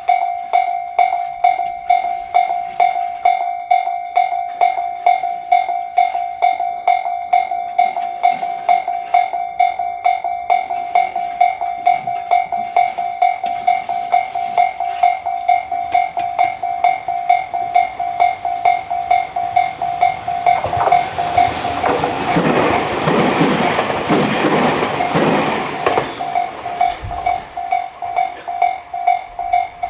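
Japanese railroad crossing warning alarm ringing its steady 'kan-kan' tone, about one and a half to two strikes a second. A train passes through the crossing for about five seconds, two-thirds of the way in, its rumble rising over the alarm. The alarm cuts off at the very end.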